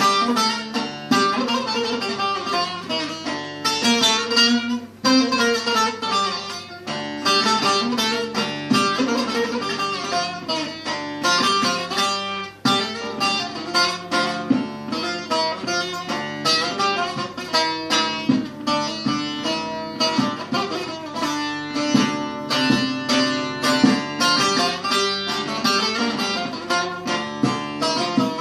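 Instrumental opening of a Turkish song, led by a plucked string instrument playing a quick, busy melody over sustained lower notes.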